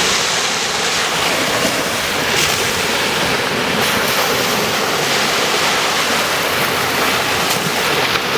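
Ocean surf washing onto a beach, a loud, steady rushing noise, with wind buffeting the microphone.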